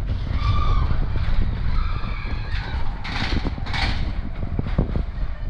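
Matterhorn Bobsleds roller coaster car running fast along its steel track, a steady low rumble with rattling knocks. A few high squeals come in the first half, and two short hissing bursts come about three and four seconds in.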